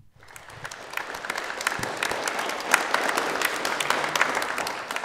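Audience applauding to welcome a speaker after her introduction. The clapping swells over the first second or two, holds steady, and thins out near the end.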